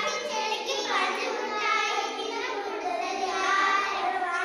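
A group of young children singing a Tamil action song together.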